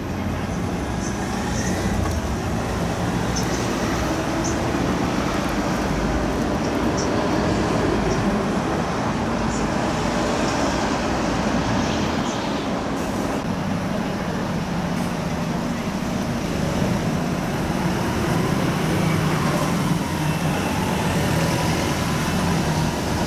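Steady road traffic, with cars and lorries passing on a wet road.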